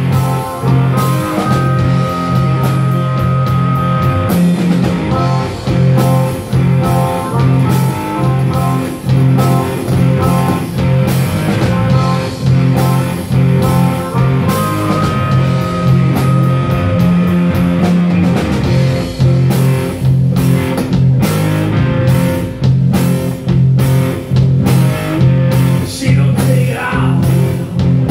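Live blues-rock band: harmonica played through a vocal mic in long held notes over electric guitar, bass guitar and a drum kit keeping a steady beat.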